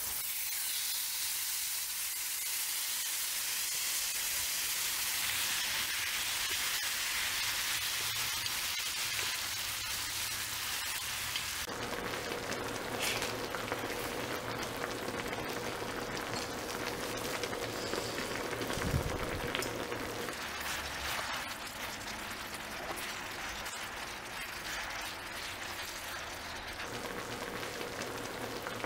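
Spicy marinated chicken for dakgalbi sizzling on a hot griddle pan, a steady frying hiss. One low thump about two-thirds of the way through.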